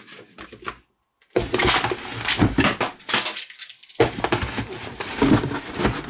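Cardboard packaging handled: a boxed motherboard scraping and knocking against the sides of a cardboard shipping box, with crackly rustling in two stretches that each start abruptly.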